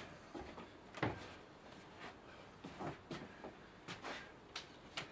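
Soft knocks and rustles of arms meeting and clothing moving as two people spar with open hands, roughly one a second, over a low steady hiss.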